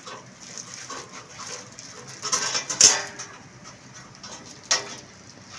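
Thin galvanized iron sheet being cut with tin snips and handled, giving crisp metallic crinkling and clatter. The loudest burst of clatter comes about two to three seconds in, with a single sharp clack near the end.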